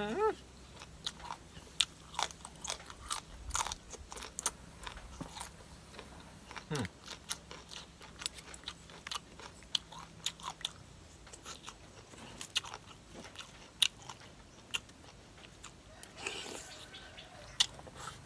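A person chewing crunchy food close to the microphone, with many sharp irregular crunches and mouth clicks.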